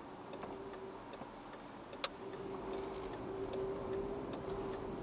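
Car's turn-signal indicator ticking evenly, about three clicks a second, as the car pulls out to turn at a junction. One sharper click about two seconds in, and a steady engine hum that grows louder as the car moves off.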